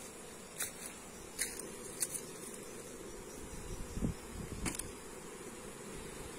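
Honeybees buzzing steadily around an opened hive while the frames are worked, with about five sharp knocks and clicks from handling the frames and box.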